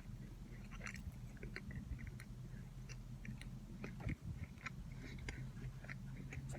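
A person chewing a mouthful of double bacon cheeseburger: soft, irregular wet clicks and smacks over a low steady hum.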